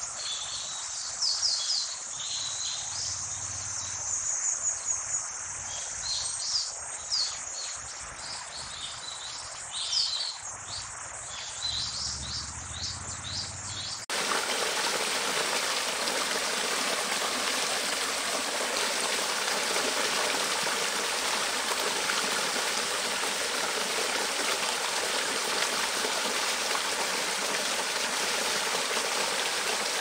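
Birds chirping in short high calls over a faint, steady insect drone; about halfway through, the sound cuts suddenly to the steady rush of a small cascade of water splashing over rocks into a shallow stream.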